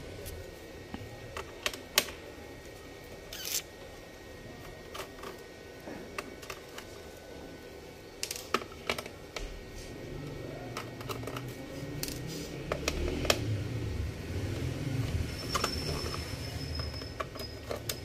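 Small screws being undone from the plastic base of a Dell Inspiron N5050 laptop with a hand screwdriver. Scattered sharp clicks and taps come from the screwdriver tip and the loosened screws, with a low rumble of handling from about halfway through and a faint high squeak near the end.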